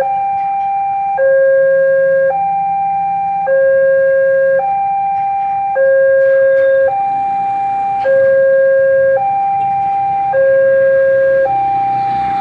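Railway level-crossing warning alarm sounding a two-tone high-low cycle, each tone held a little over a second and repeating steadily, with the crossing barriers down: the warning that a train is approaching.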